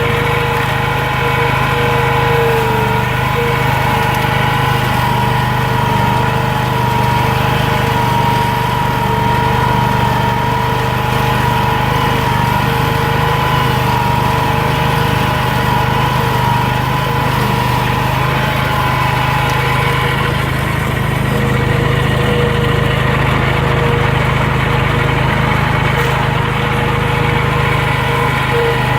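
Walker lawn mower with a power rake dethatching attachment running steadily, its engine droning under a steady whine.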